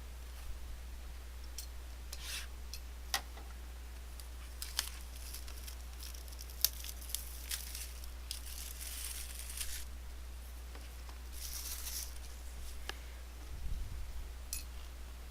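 Trading-card box packaging being torn and crinkled open, in several short rips with small clicks and taps between them, over a steady low electrical hum.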